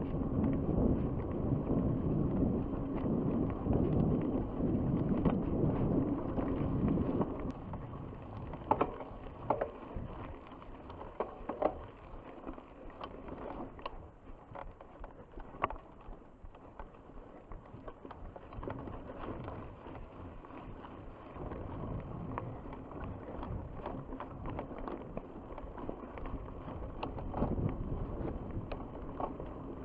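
Mountain bike riding over a grassy and dirt trail: a steady rush of tyre and ride noise, louder for the first several seconds and again near the end, with sharp clicks and knocks of the bike rattling over bumps in the quieter middle stretch.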